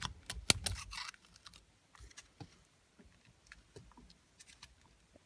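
Small metal parts clicking and clinking as a steering column's lock plate and snap ring are handled and worked loose. A quick run of sharp clicks comes in the first second, then faint scattered ticks.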